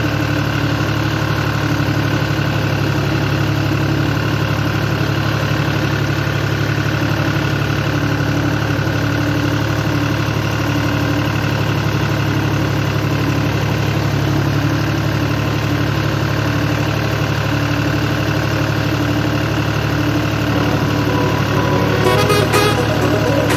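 John Deere tractor's diesel engine running steadily under load as the tractor works through a flooded, muddy paddy field. Music comes in near the end.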